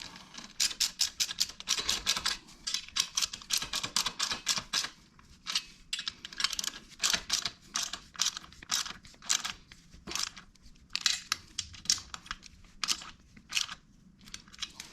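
Socket ratchet clicking in quick runs with short pauses as the exhaust mounting bolts are tightened.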